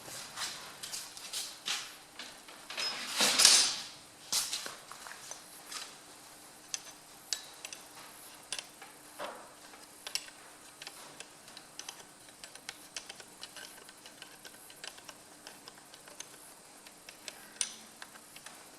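Hand work on an engine's connecting-rod big-end cap: scattered small metallic clicks and taps of tools and nuts as the nuts are fitted to the cap bolts, with a short louder rustle about three seconds in.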